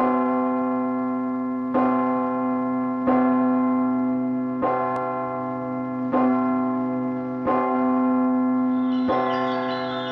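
A large bell tolling, struck seven times about a second and a half apart, each stroke ringing on into the next. Higher chime notes come in near the end.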